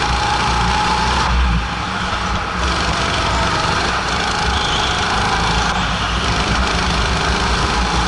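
Go-kart engine running under throttle, heard onboard with a heavy low rumble; the engine eases off briefly about a second and a half in, then pulls steadily again.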